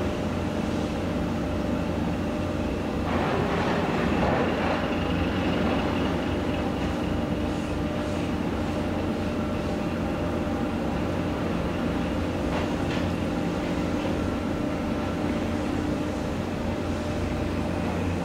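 Steady drone of ships' diesel engines and machinery, with the tug working alongside; the noise swells louder for a few seconds about three seconds in.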